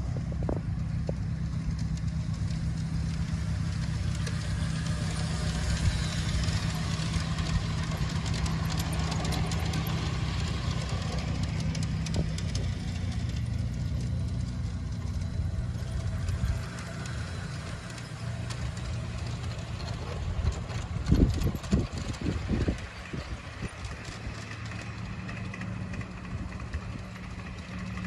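G-scale garden model train running on its track: a steady low motor hum under a hiss, with a quick cluster of clicks and knocks about three-quarters of the way through.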